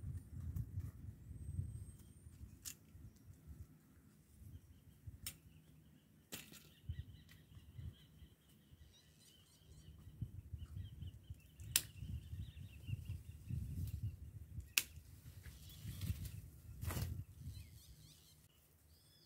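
Hand pruning shears snipping orange tree branches: about six sharp snips, several seconds apart, over a low rumble.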